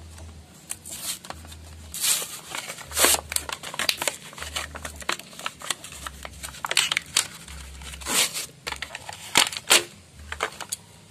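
Hands handling motorcycle clutch parts: irregular clicks, clinks and rustling scrapes, with the sharpest knocks about three and about nine and a half seconds in.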